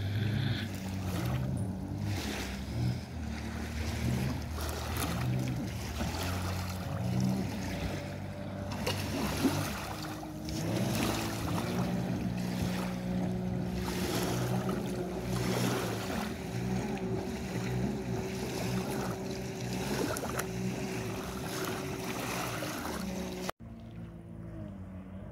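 Two jet skis running out on the water, their engine notes rising and falling as the riders throttle, with wind gusting on the microphone. The sound drops suddenly near the end and comes back quieter.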